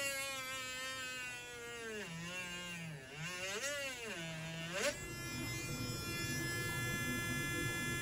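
Dremel rotary tool with a small drill bit in it, whining as it drills a pilot hole into the top of a dry silver maple carving. Its pitch dips and wavers as the bit loads up in the wood, then holds steadier from about five seconds in.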